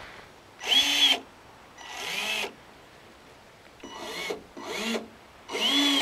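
An Axial SCX10 Deadbolt RC crawler's electric motor is revved in five short throttle blips, each a whine that rises and falls in pitch. The spur gear is stripped.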